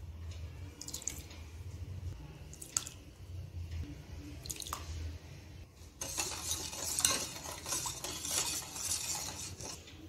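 A spoon clinks a few times against a stainless steel bowl as salt is added to water. From about six seconds in, the salt water in the bowl is stirred, a stretch of splashing with small clinks.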